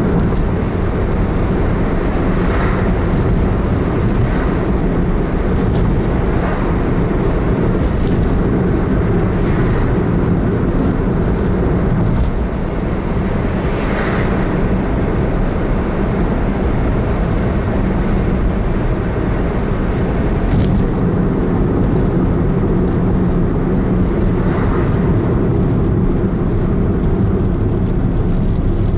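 Car driving at a steady pace, heard from inside the cabin: a continuous low rumble of engine and tyres on the road. A few faint, brief noises come and go over it.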